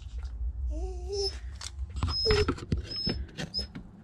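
A dog whining in a few short, wavering cries, one falling in pitch about two seconds in, with light clicks in between.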